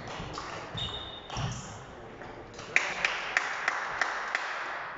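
Table tennis ball clicking off the bats and the table in a rally. In the second half the strokes come quickly, about three a second.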